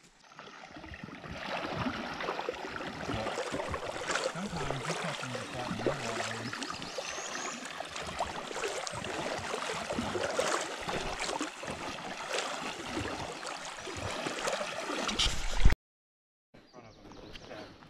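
Water swishing and splashing as legs in waders push through shallow river water, steady with irregular splashes. A loud thump comes about fifteen seconds in, and the sound then cuts off abruptly.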